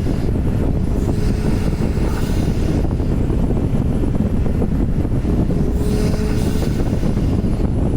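Porsche 991 Turbo's twin-turbo flat-six running under way, a steady low drone mixed with road noise. A faint, slightly rising tone sits over it near the end.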